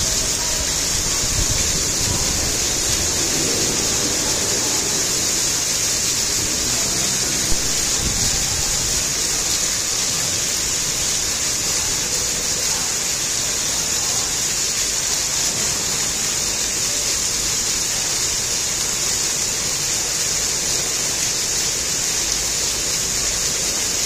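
Fountain jets splashing back into a shallow pool: a steady, even hiss of falling water. A single brief click about seven and a half seconds in.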